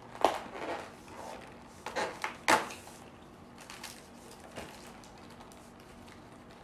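Cardboard advent calendar being opened by hand: a few short scrapes and taps of cardboard, the loudest about two and a half seconds in, then a few light clicks as the small box is handled.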